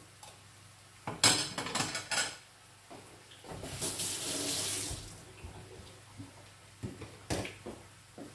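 Kitchen tap running briefly for about a second and a half near the middle, after a few clattering knocks of kitchenware. A couple more knocks come near the end.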